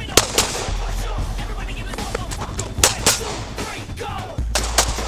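Glock 19 9mm pistol fired in quick pairs, three pairs spread over a few seconds, over background music with a steady bass.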